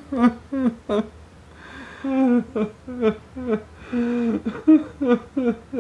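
A man sobbing and whimpering in pain: short, broken cries about two or three a second, each falling in pitch, with ragged breaths between.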